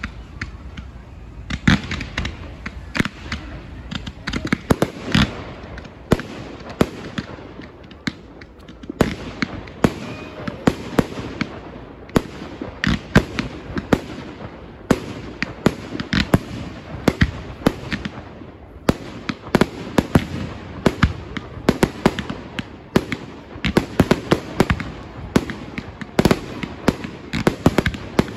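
A fireworks display: fireworks launching and bursting in a quick, irregular run of sharp bangs and pops, several a second at times.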